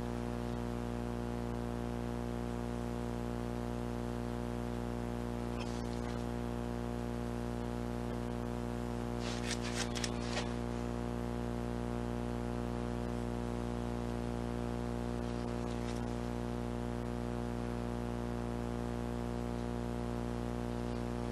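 A steady electrical or mechanical hum with many overtones. About nine to ten seconds in there is a brief run of light clicks, with a faint single click or two elsewhere.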